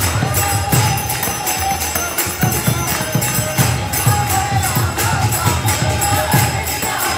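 Devotional kirtan: a lead voice sings into a microphone over a harmonium, with a mridanga drum and karatals (small brass hand cymbals) keeping a steady beat and other voices joining in.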